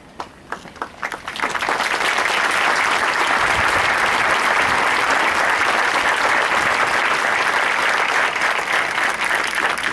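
A large crowd applauding. A few scattered claps in the first second swell into dense, steady applause.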